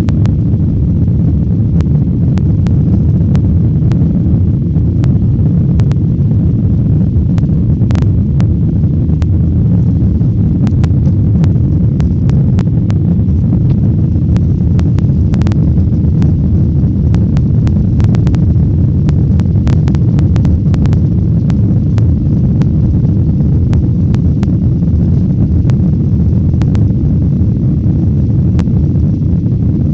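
Airliner cabin noise during the climb after takeoff: a loud, steady low drone of the engines and airflow, with scattered light clicks.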